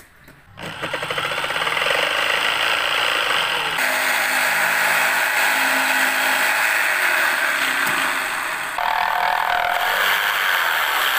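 Corded electric jigsaw running and sawing across a wooden plank, a loud steady buzz of motor and reciprocating blade. It starts about half a second in, and its tone changes twice.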